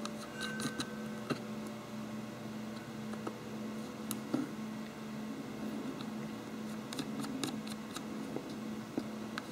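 Light, scattered clicks and taps of small washers and nuts being fitted by hand onto the threaded studs of a 3D-printed plastic housing, over a steady low hum.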